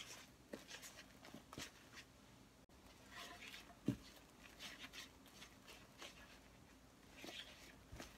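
Faint scraping and tapping of a silicone spatula stirring melting marshmallows in a nonstick frying pan, with one louder knock just before halfway through.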